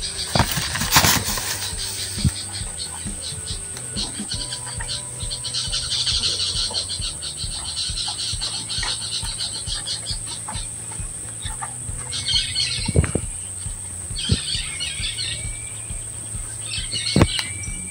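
Pasture ambience: a steady high insect buzz under bird chirps and calls, with three short bursts of calls in the last few seconds and a few sharp clicks.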